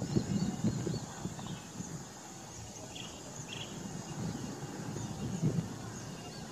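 Outdoor ambience: an uneven low rumble, louder at first, under faint, short, high chirps repeating every second or so, with two brief calls about three seconds in.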